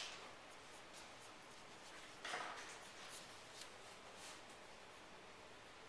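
Faint scratching of a pencil drawing on paper, with one louder, longer stroke about two seconds in.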